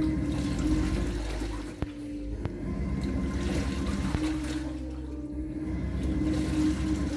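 Panasonic top-loading washing machine on its Delicate cycle, churning clothes through water: steady sloshing and swishing over a motor hum that swells and eases every few seconds as the wash action changes direction. A single short click about two seconds in.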